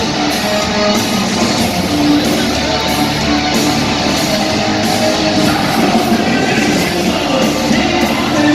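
Loud live hard-rock band playing: heavily distorted electric guitars, bass and drums with a singer, as heard through an audience phone recording in an arena, the sound dense and saturated.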